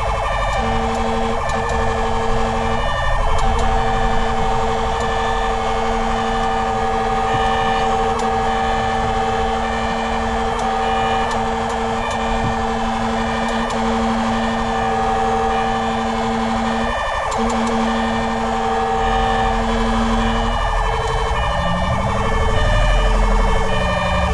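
Fire-rescue truck's siren on an emergency run: a fast warbling siren sounds throughout, overlaid by long steady horn blasts broken by short gaps, with a low rumble underneath. Near the end the long blasts give way to shorter ones and a slower rising-and-falling wail comes in.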